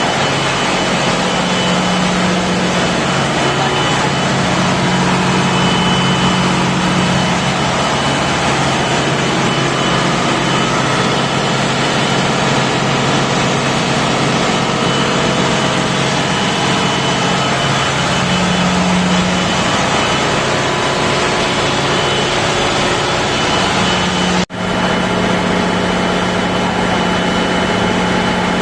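Caterpillar auxiliary diesel generator running steadily under a loud, even drone, with a momentary break in the sound about three-quarters of the way through.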